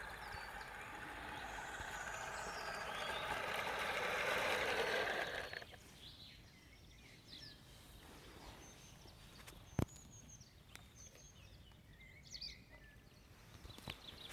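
A 1:16 scale MAN 630 RC crawler's electric drivetrain running and growing louder, then stopping suddenly about five and a half seconds in. Afterwards birds chirp faintly, with one sharp click about ten seconds in.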